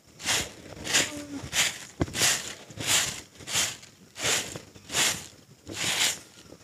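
Short hand broom sweeping bare, damp earth in a steady rhythm: about ten brushy swishes, roughly three every two seconds.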